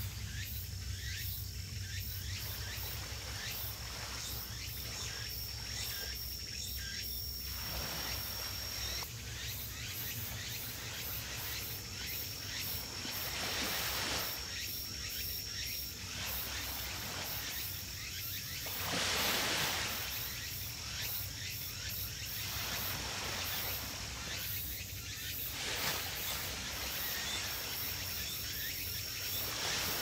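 Insects calling: a high, thin, steady trill that comes and goes in stretches of several seconds, with fast high ticking chirps throughout, over a low steady hum. A louder rush of noise swells about two-thirds of the way through.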